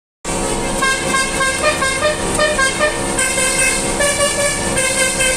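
Basuri telolet horn, a multi-tone vehicle horn, playing a quick melody of short notes.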